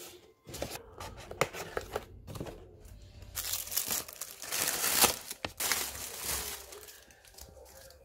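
Crinkling and rustling of packaging as a paperboard cake box is handled and folded open, with a few sharp clicks in the first seconds and the loudest rustling around the middle.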